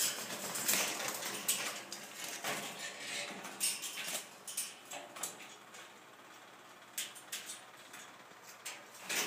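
Metal wire birdcage clinking and rattling as a white cockatoo climbs over it, its beak and feet knocking on the bars in irregular clicks, busiest in the first half.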